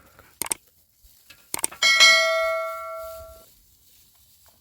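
A few sharp clicks, then, about two seconds in, a single struck metallic ring like a small bell, with several pitches that fade away over about a second and a half.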